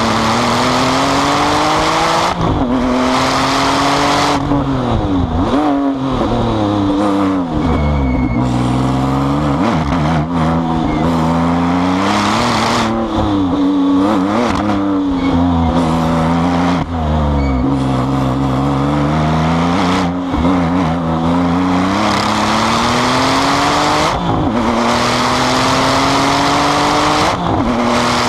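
Twin-turbo flat-six of a 700 hp Porsche 911 GT2 pulling hard, its pitch rising and falling again and again as it accelerates, shifts and brakes for corners.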